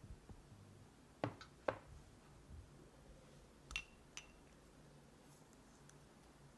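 Four light clicks and clinks of kitchen utensils being handled and set down, two close together about a second in and two more near four seconds, one ringing briefly.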